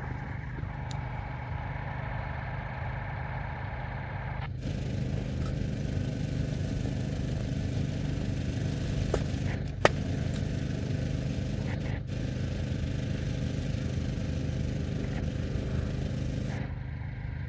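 A small engine runs steadily, driving the pump that feeds the root-injection hose. A steady hiss joins it about four and a half seconds in and stops about a second before the end, with one sharp click near the middle.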